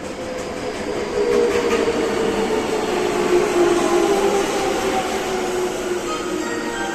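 Running sound of a Tobu 30000 series electric train heard from inside the car: the whine of its Hitachi IGBT VVVF inverter and traction motors over wheel-and-rail rumble. It grows louder over the first couple of seconds, while the motor tones slide slightly lower.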